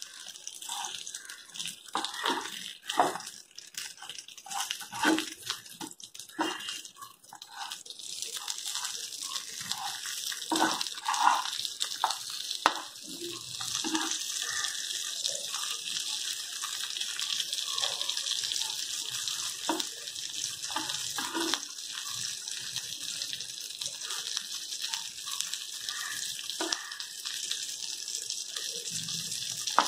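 Rawa-coated surmai (king mackerel) pieces sizzling as they shallow-fry in oil in a pan, a steady hiss that grows louder about eight seconds in. A metal spatula knocks and scrapes against the pan as the pieces are turned, mostly in the first half.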